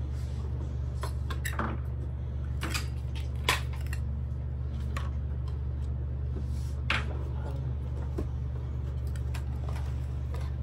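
Toy kitchen dishes and utensils being handled: scattered light clicks and clinks, the loudest about three and a half seconds in, over a steady low hum.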